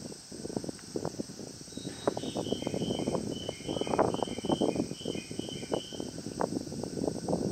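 Insects chirring steadily over a low, uneven rumble, with a run of short high notes alternating between two pitches in the middle.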